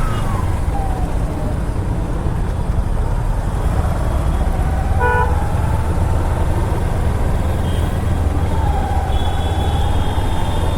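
Motorcycle riding through city traffic: a steady low rumble of engine and wind, with a vehicle horn honking briefly about five seconds in.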